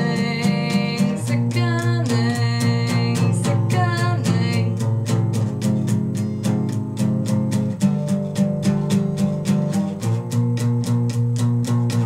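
Acoustic guitar strummed steadily with a woman singing over it. The singing stops about five seconds in, and the guitar carries on alone.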